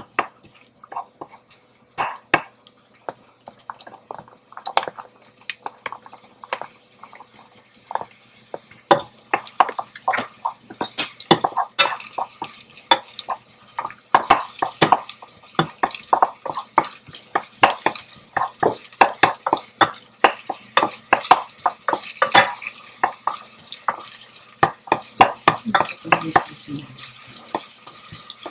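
Wooden spoon stirring and scraping chopped onions and garlic in a stainless steel pot, with many quick taps and scrapes against the metal. From about a third of the way in, a fine hiss of the onions sautéing in hot oil rises beneath the stirring.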